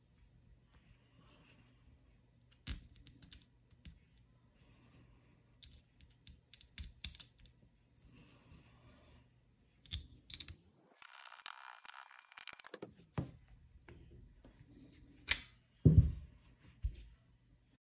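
Light clicks and taps from an aluminium ATV carburetor and small hand tools being handled and set down on a towel, with a brief rustle about two-thirds through and a couple of louder knocks near the end.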